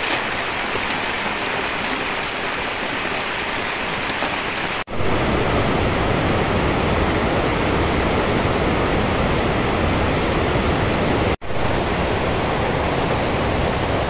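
Steady rushing noise like rain or running water. About five seconds in it briefly cuts out and returns louder and deeper; another brief dropout comes about eleven seconds in.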